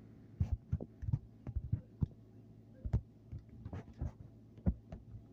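Irregular soft low thumps and a few sharper clicks, two or three a second, over a steady low hum.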